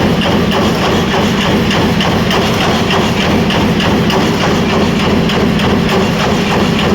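Fin press running, its ram stamping in a fast, even beat over a steady machine hum.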